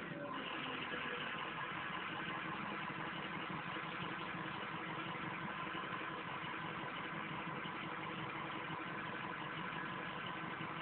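Ford diesel truck engine idling steadily.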